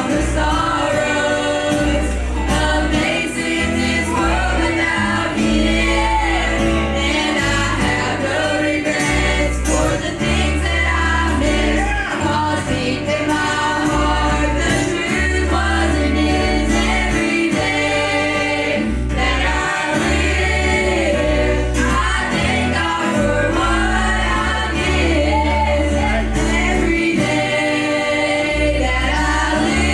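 Gospel group of several voices singing in harmony over instrumental accompaniment with a steady, stepping bass line.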